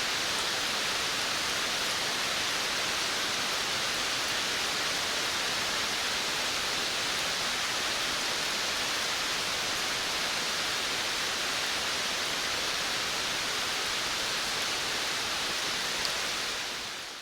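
Steady rain falling on a veranda: an even, unbroken hiss that fades out right at the end.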